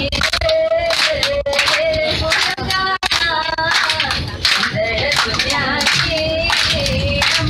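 People singing a song with long held, wavering notes, accompanied by steady hand-clapping in time.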